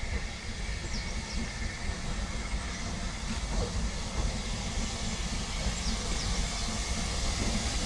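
Narrow-gauge double Fairlie steam locomotive drifting slowly into a station with a low rumble and a steady hiss of steam, growing louder as it comes closer.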